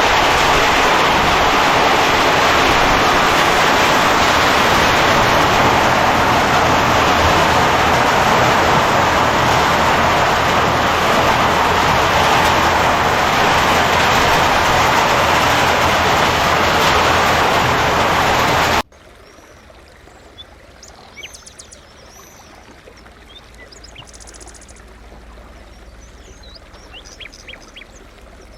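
Loud, steady rushing noise of a moving vehicle, which cuts off abruptly about 19 seconds in. After the cut comes quiet outdoor ambience with birds chirping.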